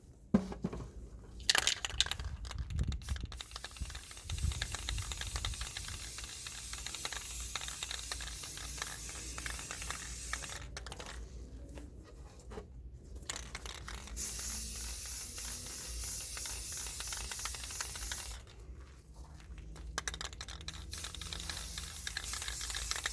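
Aerosol spray paint can hissing in three long passes, with short pauses between them, as a light dusting coat is sprayed on.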